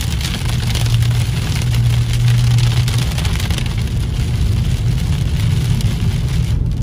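Heavy rain falling on a car's windshield and roof, heard from inside the moving car over a steady low rumble of engine and tyres on the wet road.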